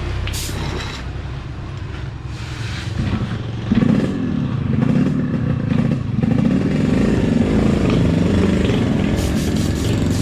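Yamaha RX-King's two-stroke single-cylinder engine, tuned for the 'ngorok' exhaust note, running and then revving up and getting louder about four seconds in, with the revs rising and falling from then on.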